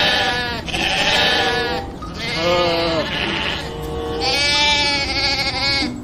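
Sheep bleating: about four long bleats one after another.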